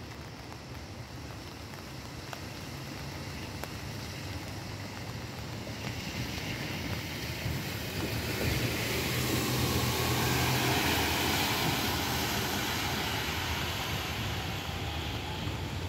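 Keikyu New 1000 series electric train running along an elevated viaduct, its noise building from a faint rumble to a steady rush as it approaches and loudest about two-thirds of the way through.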